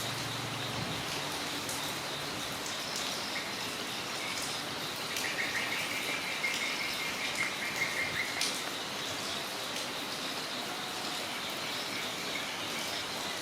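Steady rain falling. About five seconds in, a rapid trill of chirps, from an insect or a bird, runs for about three seconds over the rain.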